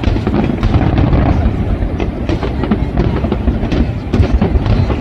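Fireworks display: a dense run of bangs and crackles over a continuous low rumble.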